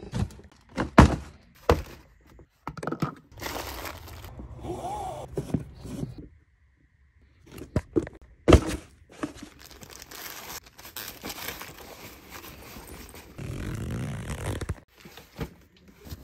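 Cardboard shoe boxes and a sneaker being handled: a few sharp thunks, the loudest about a second in, again just after, and about eight and a half seconds in, between stretches of scraping and rustling.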